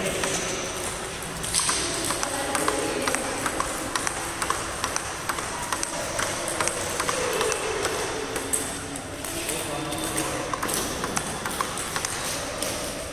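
Table tennis rally: the celluloid ball clicking sharply and regularly off the paddles and the table, several hits a second, with voices in the background.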